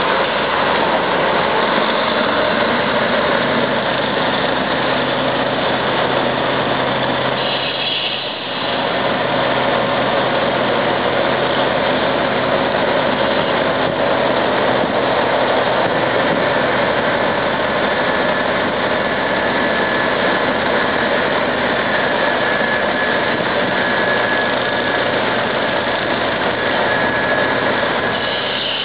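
Heavy diesel engines of a crawler bulldozer and a Tatra 815 dump truck running steadily under load as the dozer pulls the truck out of deep mud, with a brief dip about eight seconds in.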